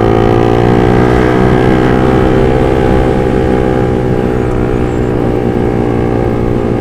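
Sport motorcycle engine running at a steady cruising speed while riding, its pitch holding nearly level throughout.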